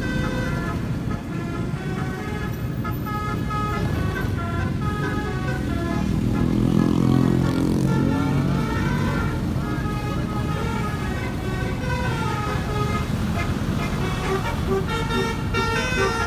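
Basuri 'keong' snail-type multi-tone telolet horn playing a tune in short stepped notes, over the low rumble of an engine and traffic. A louder low vehicle rumble swells up about six seconds in for a couple of seconds.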